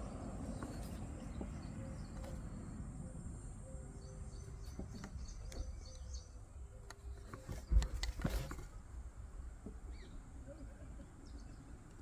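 Knife blade carving feather curls from a stick of fatwood: short, quiet scraping strokes, with a louder cluster of strokes about eight seconds in. Birds chirp faintly in the background.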